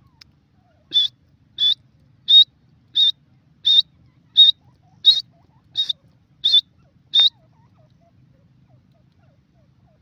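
Grey francolin calling: a series of ten short, high, whistled notes, evenly spaced a little under a second apart, which then stops.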